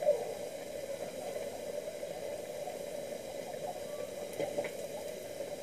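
Hot oil frying unnakkaya (stuffed plantain rolls) in a frying pan, a steady low sizzle, with a brief click just after the start.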